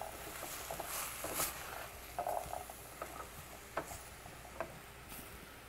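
Faint stirring of chickpeas and vegetables in a stainless steel pot: a few light clicks and scrapes of the spoon against the pot, spaced irregularly, over a low hiss from the pan.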